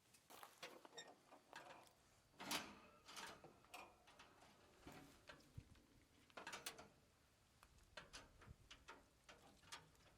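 Near silence broken by a series of faint, irregular clicks and knocks, like objects being picked up and set down.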